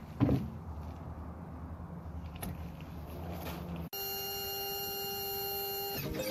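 A single dull thump as a rubber SnapPad is set down on a pickup's tailgate, over a steady low hum. About four seconds in, this cuts abruptly to music with long held tones.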